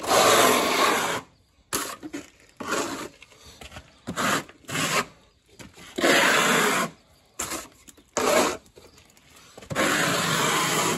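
Hand trowel scraping thin-coat render along the bottom of a rendered wall in a series of strokes, taking the excess off. The longest strokes come at the start, about six seconds in and near the end, with shorter ones between.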